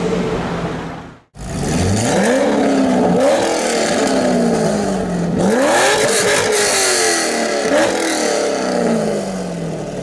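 Modified Chevrolet Corvette V8 revved hard about four times, each rev sweeping up sharply and sinking back more slowly. The sound drops out briefly about a second in.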